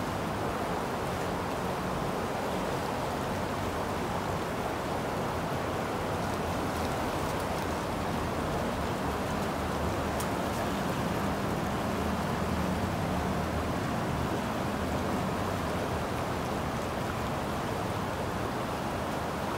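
Steady rushing of a fast-flowing muddy river running high.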